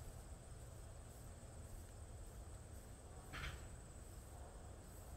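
Faint, steady, high-pitched chirring of insects, with a brief soft scrape a little past halfway.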